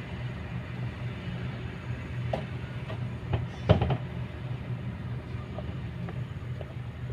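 Kobelco excavator's diesel engine running steadily, with a few short knocks and clanks, the loudest a cluster a little past halfway.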